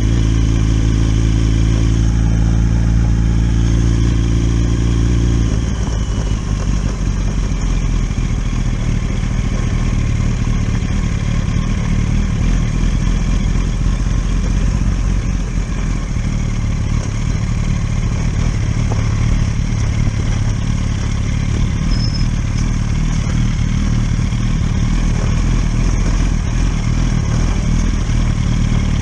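Inline-four engine of a 1000cc sport motorcycle running on the move, with a steady note that changes to a rougher, less even sound about five seconds in.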